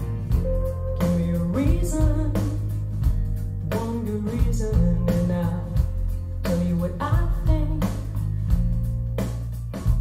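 Rock song with a singing voice, guitar, heavy bass and a steady drum beat, played back through Wharfedale Diamond 240 floor-standing speakers and picked up by a microphone in the room.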